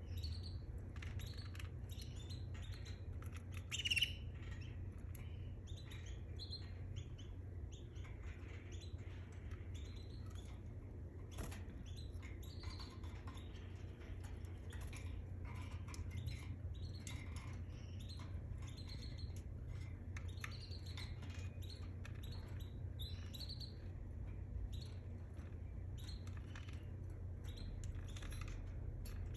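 Canary singing: a long run of short chirps and trills, with one louder, higher note about four seconds in, over a steady low hum.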